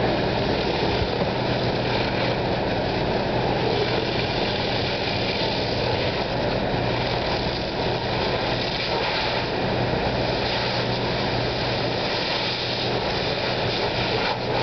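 Steady drone of a running engine on the fireground, with a constant rushing hiss over it.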